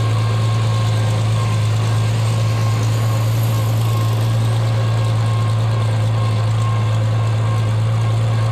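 Cockshutt 40 tractor's engine running at a steady speed while driving, a constant low drone.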